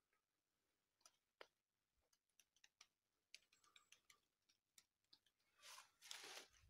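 Mostly near silence with a few faint scattered clicks, then a single footstep crunching in dry fallen leaves near the end.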